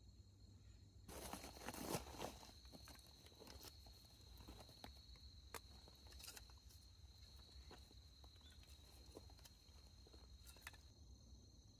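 Faint outdoor sounds: scattered soft crunches and clicks, densest about a second or two in, over a steady high trill of insects that starts about a second in and stops shortly before the end.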